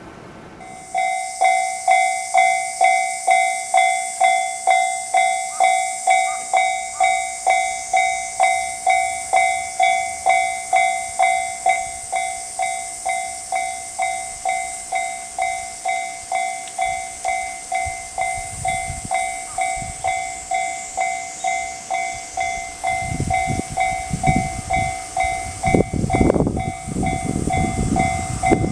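Japanese railway level-crossing warning bell starting about a second in and ringing steadily, about two dings a second. A train's rumble builds under it in the second half and is loudest near the end as the train reaches the crossing.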